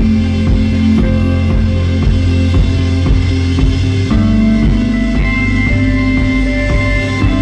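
Instrumental rock music: guitars holding sustained chords over bass and a steady drum beat, with a chord change about four seconds in.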